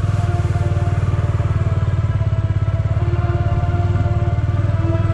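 Bajaj Dominar motorcycle's single-cylinder engine running at low, steady revs as the bike rides off slowly.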